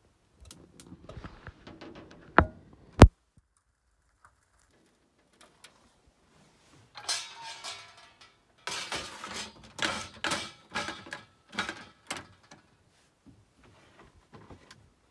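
Camper oven and its wire shelf being handled: two sharp metallic clicks a little over two and three seconds in, then several seconds of metal rattling and clattering from about seven to twelve seconds.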